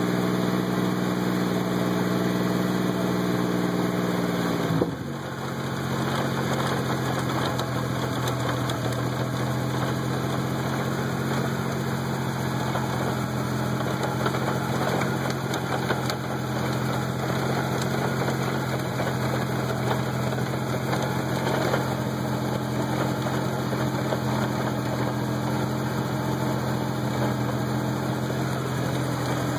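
A 4x4 truck's engine runs steadily and drops to a lower speed about five seconds in. A layer of extra mechanical noise from the drivetrain runs over it: a klunking the owner gets only in 4x4 with the hubs locked, and which he suspects comes from the transfer case.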